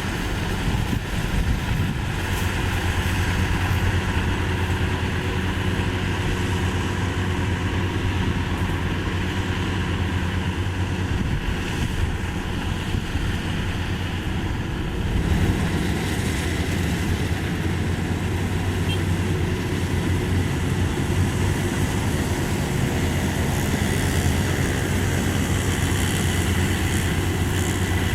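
Engine of a Maxxi Bimo 102 rice combine harvester running steadily under load while working a field, with a brief rise and slight change in its sound about fifteen seconds in.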